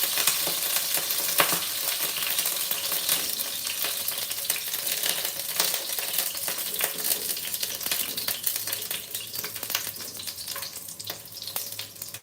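Carrot pieces frying in hot oil in a pan, a steady sizzle with frequent clicks of a utensil stirring and scooping them; the sizzle gradually dies down toward the end.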